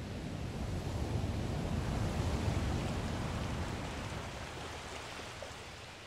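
Ocean surf crashing against rocky shore ledges: a rushing roar of breaking water that swells to a peak about two and a half seconds in, then dies away as it fades out.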